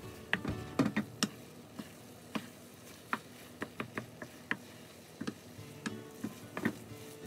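Wooden spatula stirring a thick, sticky glutinous rice mixture in a wok, knocking and scraping against the pan in irregular clicks, loudest about a second in.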